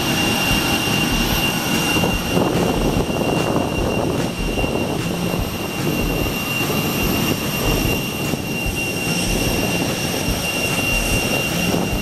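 Steady whine of jet aircraft engines, one high tone held over a broad rushing noise.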